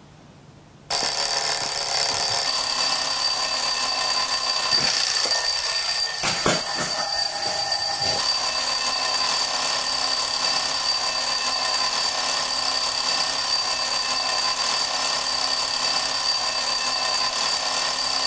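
Alarm clock bell ringing loudly and without pause, starting abruptly about a second in.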